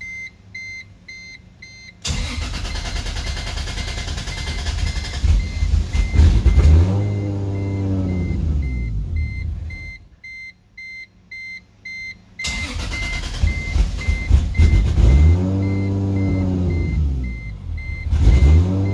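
Toyota 2JZ straight-six with a straight-pipe exhaust firing up about two seconds in, its revs rising and falling as it struggles to hold an idle on a freshly set-up standalone ECU tune; it cuts out about ten seconds in and starts again a couple of seconds later. A high electronic warning beep repeats about twice a second throughout.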